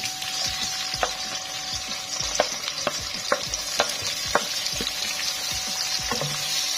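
Sliced onions sizzling as they fry in hot oil in a metal wok-like pan, with a steady hiss. A wooden spatula stirring them knocks against the pan about every half second.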